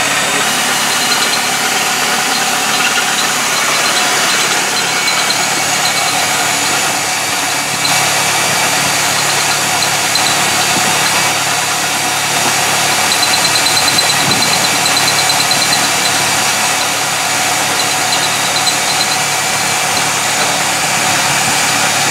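Heavy-duty corded drill with spade and side handles running under load, boring into a metal part held in a vise: a steady motor drone and grinding with a thin high whine that comes and goes.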